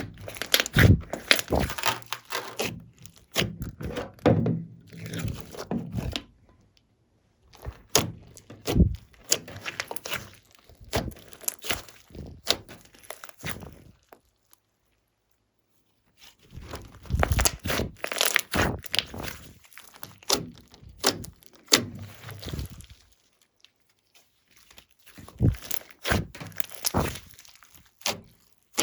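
Glossy slime being squeezed, stretched and folded by hand: bursts of sticky clicks, pops and squelches. The bursts stop for a second or two about a quarter, half and three-quarters of the way through.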